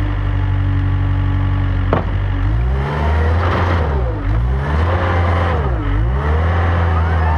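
Gehl AL540 articulated wheel loader's diesel engine running at steady speed, then revving up after a click about two seconds in as the bucket works into the dirt pile. Its pitch dips and recovers twice under the load, about four and six seconds in.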